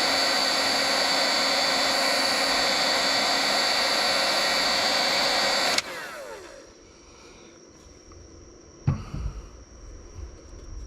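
Electric heat gun blowing steadily while heating a solder-seal butt connector on a wire splice, then switched off about six seconds in, its fan winding down with a falling whine. A single knock follows about three seconds later.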